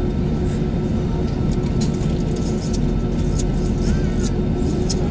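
Steady cabin drone of an Airbus A320 standing on the ground with its engines idling, with a constant hum and a few faint clicks.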